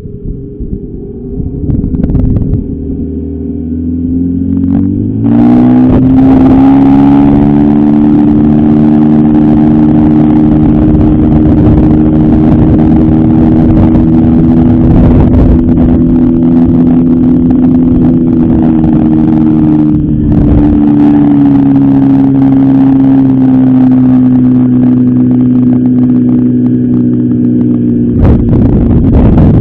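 Sea-Pro 9.9 two-stroke outboard motor running under way during its break-in. It speeds up over the first few seconds, then runs steadily, easing slightly about twenty seconds in.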